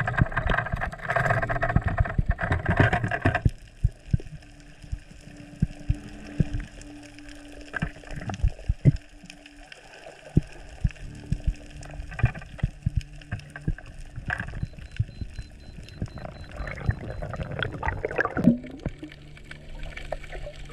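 Underwater sound on a diver's camera: a loud rush of water for the first few seconds, then quieter gurgling with many scattered sharp clicks and pops.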